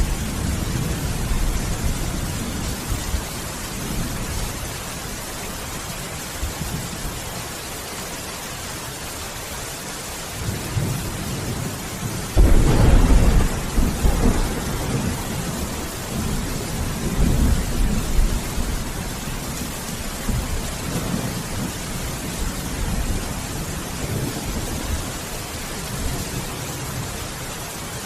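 Steady rain with thunder. A low rumble fades over the first few seconds, then a sharp thunderclap about twelve seconds in, the loudest moment, rolls on for several seconds before dying away.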